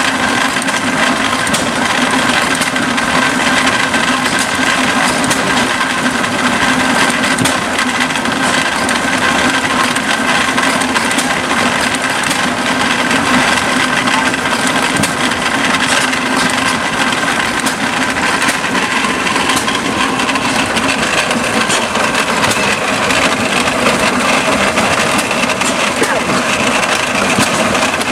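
Letz feed grinder running, grinding shelled corn: a loud, steady mechanical din with a held whine and a dense crackle.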